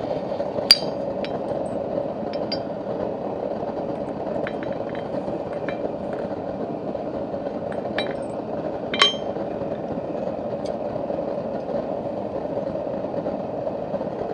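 Scattered metal-on-metal clinks of blacksmithing tools and steel being handled, irregular and light, the two loudest about a second in and near nine seconds, over a steady rushing noise.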